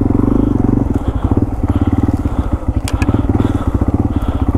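Yamaha TW200's single-cylinder four-stroke engine running at low speed while riding a trail, its separate firing pulses plainly audible, a little louder for the first second. A couple of sharp clicks come about three seconds in.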